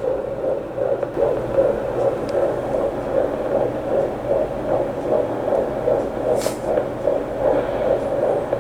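Fetal heartbeat picked up by a handheld fetal Doppler: a fast, even pulse of about two and a half beats a second over a steady low hum. This is about 155 beats per minute, a rate that is quite common at 13 weeks of pregnancy.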